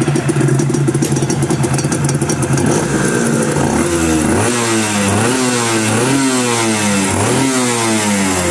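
Honda NSR250's two-stroke V-twin engine idling steadily, then revved in a series of quick throttle blips, its pitch rising and falling again and again from about three seconds in. The revving is done to check the exhaust power-valve servo.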